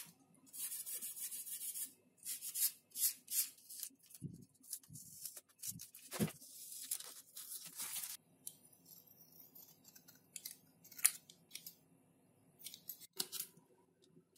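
Adhesive tape being peeled off and pressed down by hand on a foam board, with bursts of crackling and rustling through the first eight seconds. After that it goes quieter, with a few sharp scissor snips trimming the tape edge near the end.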